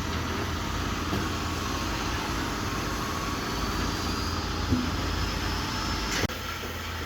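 Heavy construction machine's diesel engine running steadily, with a short knock near the middle and an abrupt change in the sound near the end.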